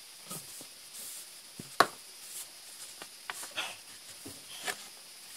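Handling noise from unpacked album contents: scattered rustles and light taps of paper and packaging, with one sharp tap a little under two seconds in.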